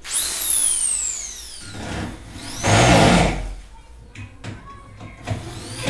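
Cordless drill-driver run in two short bursts: first a high whine that falls away as the motor spins down, then about two and a half seconds in a second brief pull of the trigger, rising and falling.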